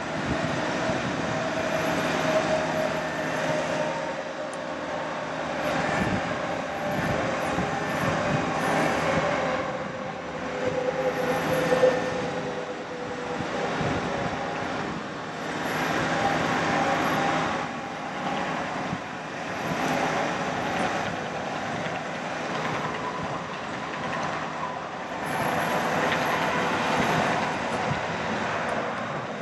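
Diesel bucket truck running with its hydraulic pump working the Terex Hi-Ranger TL38P boom, a steady mechanical noise that swells and eases every few seconds, with a faint whine that slowly drops in pitch in the first half.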